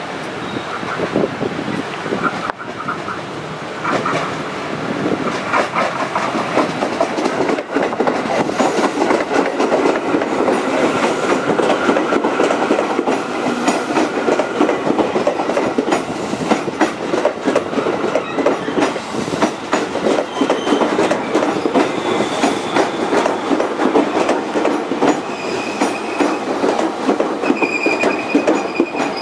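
KRL Commuterline electric commuter train passing close by, its wheels clicking rapidly over the rail joints along with the steady rumble of the cars. Thin, high wheel squeals come and go in the second half.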